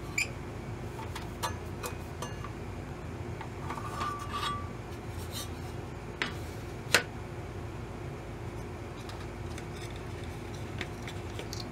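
Hands handling a small sheet-metal project box and lifting its cover off: scattered light clicks, rubs and metallic clinks, the sharpest clink about seven seconds in, over a faint steady hum.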